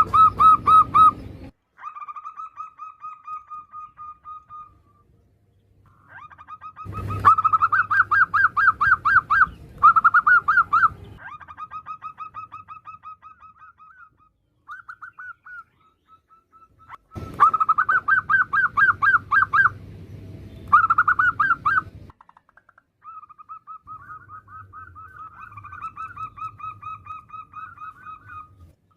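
Female zebra dove (perkutut) calling: fast trains of short, rolling repeated notes, rising into three loud bouts with softer trilling between them.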